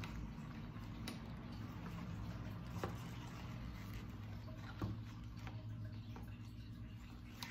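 Plastic lip gloss tubes with metallic caps being handled in a plastic tray, knocking lightly against each other about four times over a low steady hum.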